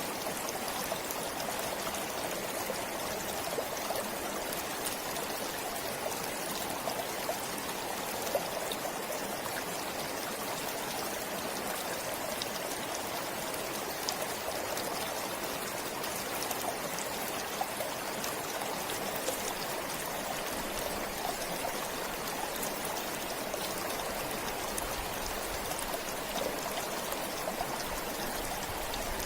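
Forest stream flowing: a steady rush of water with small splashes and drips ticking through it.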